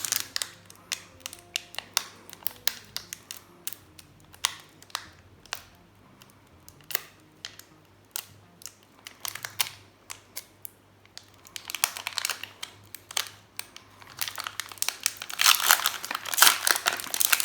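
Foil booster-pack wrapper crinkling and crackling as it is worked at and torn open by hand, in scattered sharp crackles, with denser, louder crinkling about twelve seconds in and again near the end.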